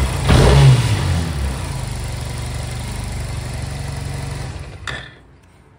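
Honda Silver Wing scooter's parallel-twin engine blipped once, then idling steadily after its air and idle screws have been set; it stops with a click near the end.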